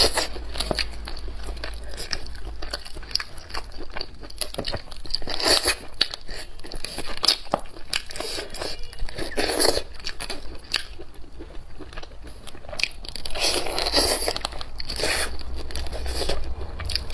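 Eating salt-baked chicken: meat torn apart by hand and bitten and chewed off the bone. Many small clicks of chewing run throughout, with a louder bite every few seconds.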